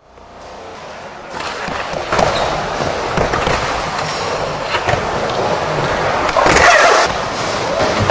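Skateboard wheels rolling and carving around a skatepark bowl, fading in out of silence, with scattered knocks from the board and a louder scrape about two-thirds of the way in.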